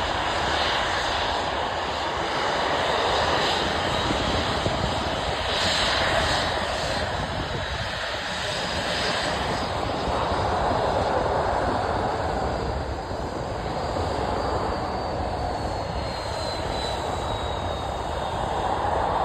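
Airliner's engines roaring at takeoff power as the plane runs down the runway, a steady broad roar. In the last third a faint high whine slides slowly down in pitch.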